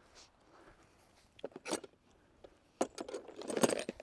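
Metal hand wrenches clinking and jangling together as they are picked up. There are a few sharp clinks about a second and a half in, then a busier run of clinks near the end, which is the loudest part.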